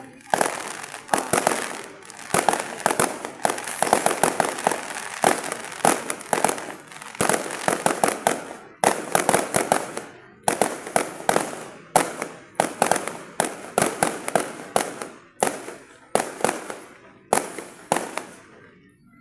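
Aerial fireworks going off in quick succession: sharp cracks and bangs in clusters, about one or two a second, each trailing off in crackle and echo.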